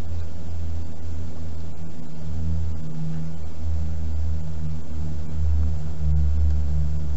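A steady, loud, low mechanical drone, like a running engine or motor, with a faint constant hum above it and no sudden sounds.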